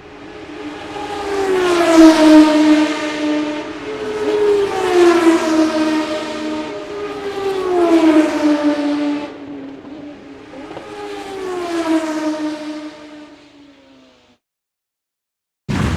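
Fast cars passing one after another, four times about three seconds apart, each engine note dropping in pitch as it goes by and swelling then fading. The last pass fades away to silence, and a sudden loud noise starts just before the end.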